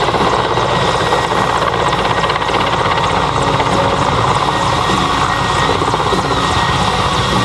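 Helicopter in flight making a steady, loud rotor noise, with a thin high whine running through it.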